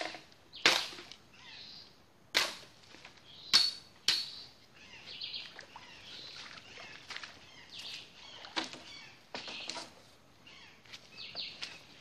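Sharp cracks and knocks with rustling between them: bamboo and leaves being cut and handled while a shelter is built. The loudest strikes come about five times in the first four seconds, then smaller ones follow.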